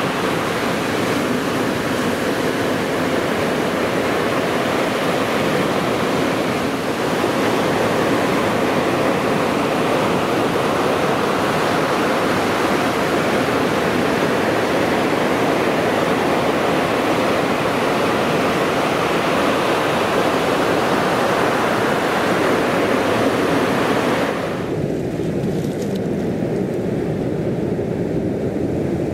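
Ocean surf breaking and washing up a beach in a steady rush, with wind on the microphone. About 25 seconds in the sound turns duller and more muffled, losing its hiss.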